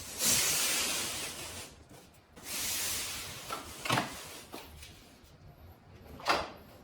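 Two sliding, rubbing hisses about a second each, followed by a few short light knocks.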